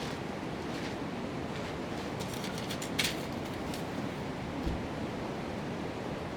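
Wood campfire burning: a steady rushing hiss with a few scattered crackles and pops, the sharpest about three seconds in, and one low thump a little later.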